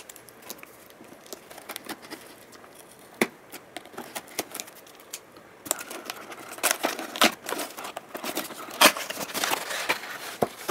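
Hands opening a cardboard box: fingers scraping and tapping on the cardboard at the tape seal, then the lid being lifted open. Scattered clicks and scrapes, sparse at first with one sharp click about three seconds in, and busier from about halfway on.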